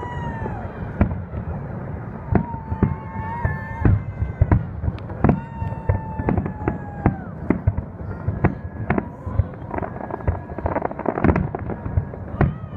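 Fireworks display: many sharp bangs in quick succession, with several whistles, each about a second long, that sag slightly in pitch.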